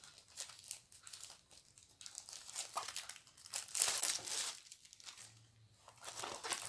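Diamond painting kit packaging crinkling and rustling as it is handled and pulled open, in irregular bursts, loudest about four seconds in.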